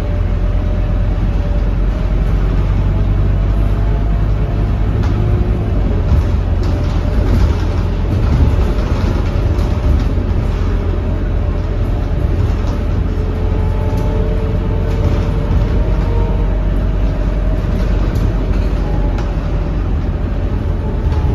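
Scania K230UB city bus heard from inside the passenger cabin while driving: its 9-litre five-cylinder diesel gives a steady low rumble over road noise, with a thin whine that slowly rises and falls as the bus changes speed.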